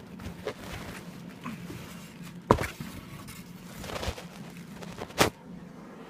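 Handling noise as a subwoofer is worked out of its cardboard box by hand: rustling and scraping, with a sharp knock about two and a half seconds in and another near the end.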